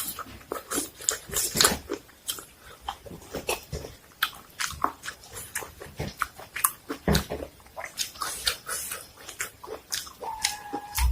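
Close-miked eating: irregular crunching, chewing and wet mouth clicks as crunchy food is bitten and chewed, with a brief hum-like tone near the end.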